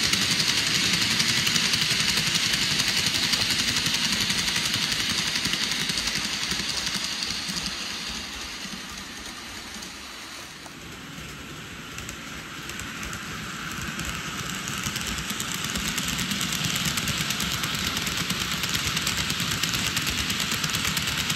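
N-gauge TOMIX Twilight Express Mizukaze model train running on track: a steady whirring rattle of wheels and motor. It fades away about ten seconds in as the train passes by, then builds up again as the train comes back.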